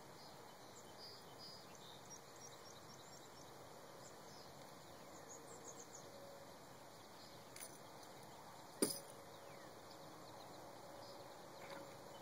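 Quiet pondside ambience with faint, scattered chirps of small birds and a faint steady hum in the second half. A single sharp click or knock about nine seconds in is the loudest sound.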